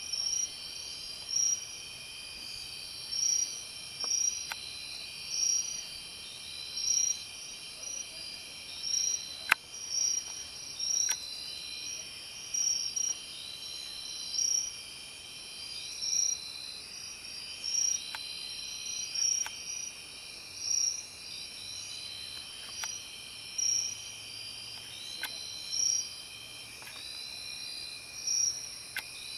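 Night insects chirping: several steady high trills, with a louder chirp about every second and a half. A single sharp click about ten seconds in.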